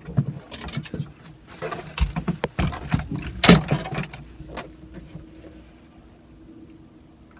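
A run of knocks, bumps and rattles on a boat, loudest about three and a half seconds in, then dying down to a faint steady hum.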